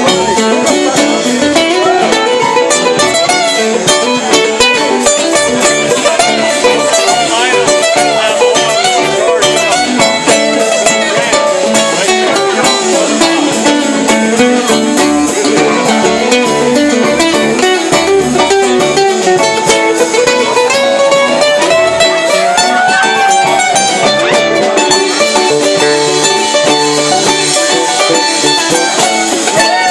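Live band playing an instrumental stretch, an electric guitar line bending in pitch over the drums, loud and without a break.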